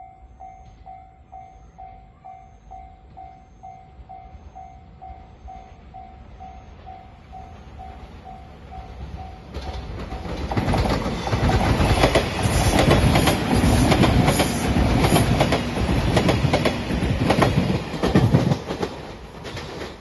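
Japanese level crossing warning bell ringing in a rapid, even ding-ding, then a five-car JR Shiokaze limited express electric train passes close by at speed from about ten seconds in, its wheels clattering over the rail joints and drowning out the bell, fading near the end.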